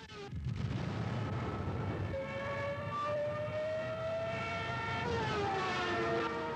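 Junkers Ju 87 Stuka aircraft sound: a low engine rumble, with a pitched whine entering about two seconds in, rising slowly, then falling away from about five seconds in.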